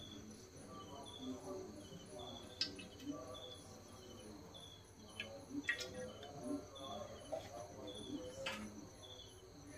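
Faint, evenly repeating insect chirping, a short high chirp more than once a second, with a few soft clicks.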